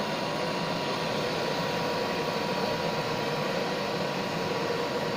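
Steady rushing hiss of a burner heating salvaged solder back to a melt, even and unbroken, with a faint steady hum under it.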